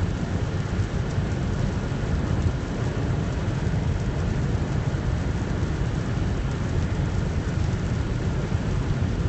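Steady noise of heavy storm rain and wind on a car driving through a thunderstorm, heard from inside the cabin, with a deep rumble underneath.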